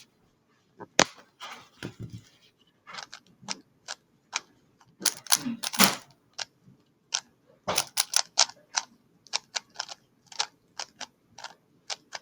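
Plastic speedcube being turned fast by hand: rapid, irregular clicking and clacking of the layers, several clicks a second in uneven bursts, starting about a second in.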